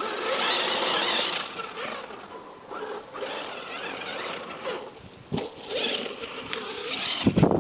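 Maverick Vader brushless electric 1/5-scale RC car running, a hissing mix of motor whine and tyre noise that swells and fades several times. A louder, ragged low rumble comes in near the end.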